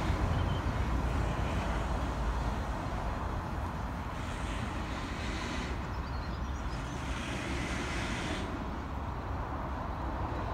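Freight train of covered hopper wagons rolling away along the track: a low rumble of wheels on rails that slowly fades.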